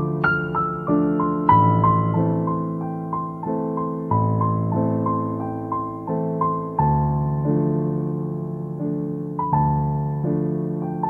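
Background music: slow, gentle solo piano, single notes and chords struck and left to fade.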